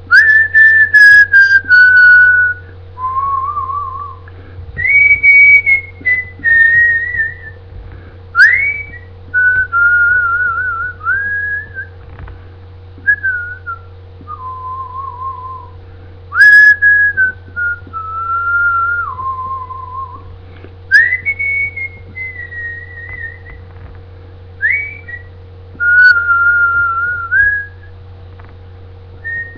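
A person whistling a melody in clear held notes with a slight waver, the same phrase coming round a second time about halfway through. A steady low hum runs underneath.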